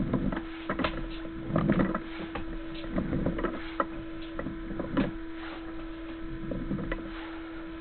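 Sewer inspection camera's push cable being fed through a drain pipe: irregular soft knocks and rattles over a steady electrical hum.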